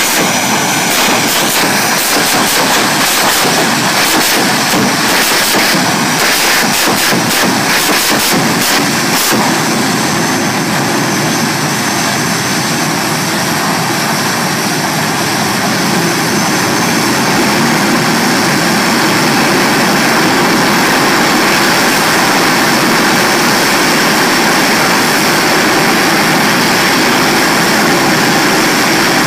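Jet engines of jet-powered drag cars running loudly, with dense crackling over the first several seconds while the afterburner flame is lit. They then settle into a steady, continuous rush that grows slightly louder about halfway through.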